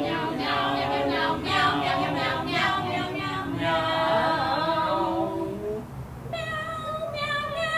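A small mixed group of young voices singing unaccompanied in harmony, finishing on a long held note near the end.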